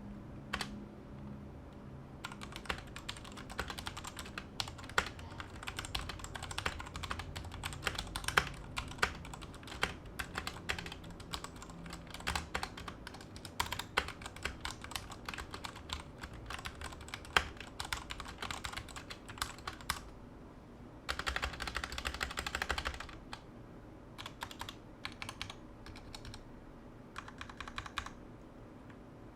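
Typing on a Royal Kludge RK84 mechanical keyboard: a run of irregular key clicks, then a dense, fast flurry of keystrokes about three-quarters of the way through, then a few scattered keystrokes.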